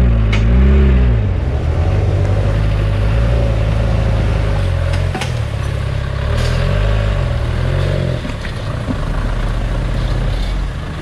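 Off-road 4x4 vehicle's engine working under load, revving up and down in short swells about a second in and again about two-thirds of the way through, with a few sharp knocks.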